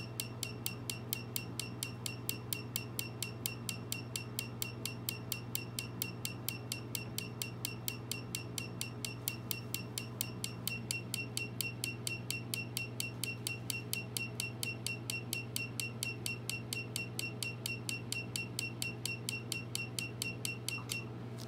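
Tattoo-removal laser firing a rapid, even train of pulses against the skin: a sharp click with a short high beep about five times a second, over a steady low hum. The pulsing stops just before the end.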